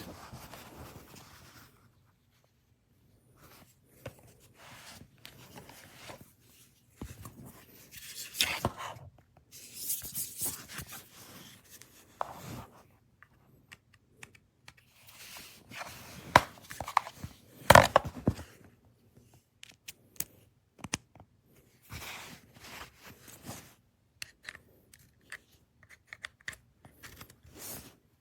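Product packaging being torn open and handled: irregular tearing and rustling with sharp clicks and snaps, loudest about two-thirds of the way through.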